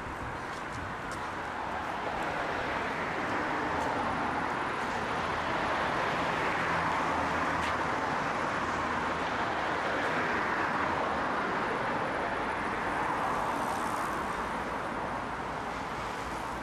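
Steady road traffic noise, swelling gradually and easing off near the end.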